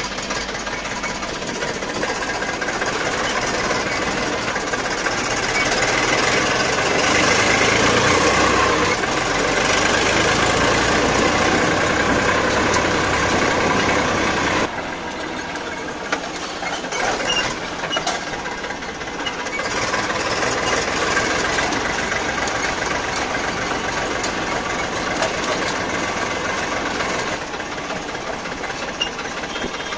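Tractor's diesel engine running as the tractor is driven, getting louder toward the middle and then dropping off abruptly about halfway through before running on steadily.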